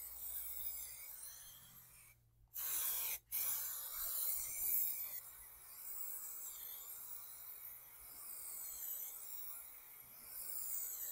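Aerosol can of Raptor bed liner, fitted with a trigger spray handle, hissing as the coating is sprayed onto the truck's body. The hiss is broken off by a short silence about two seconds in.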